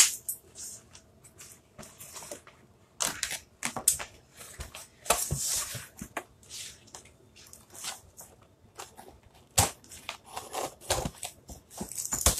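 Cardboard shipping box being opened and its packing handled: irregular rustling, crinkling and scraping of cardboard and paper, with a few sharp clicks.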